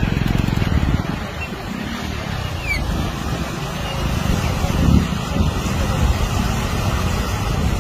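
Floodwater rushing over and along a road, a steady loud rushing noise mixed with wind buffeting the microphone.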